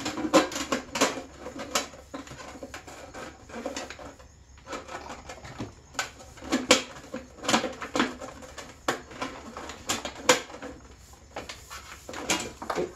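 Sheet-metal stovepipe being pressed together along its snap-together seam: irregular sharp clicks, pops and rattles of the thin flexing metal as the lip works into the groove.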